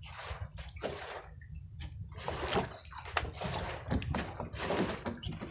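Water splashing and sloshing in irregular bursts as a fishing longline is hauled in by hand over a boat's bow, with a steady low rumble underneath.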